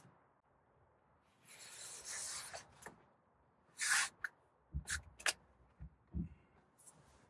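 Soft rubbing for about a second, then a few light knocks and clicks, from handling around a closed pickup truck tailgate and bed.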